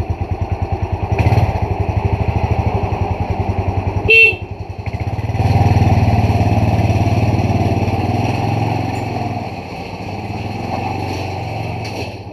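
Motorcycle engine idling with a fast, even pulse, cut by one short horn beep about four seconds in, sounded to get the gate opened. After the beep a smoother, steadier running sound takes over.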